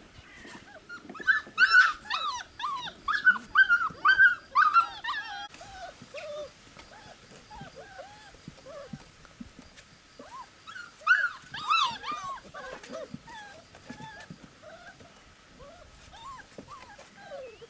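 Young puppies, about four and a half weeks old, squealing and yelping in short, high-pitched calls. A quick run of loud calls comes in the first few seconds and another burst about eleven seconds in, with fainter squeaks between.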